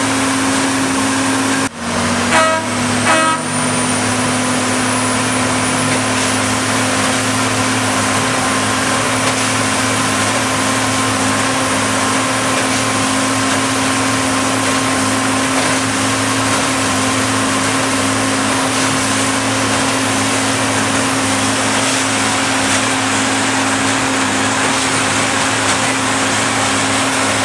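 A railway drone tamper gives two short toots on its horn about two seconds in, its signal before it starts moving. Then a steady engine sound runs on with an unchanging hum.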